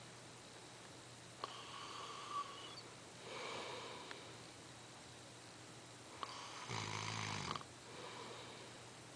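A man snoring in his sleep: a few separate snoring breaths, the loudest and lowest about seven seconds in.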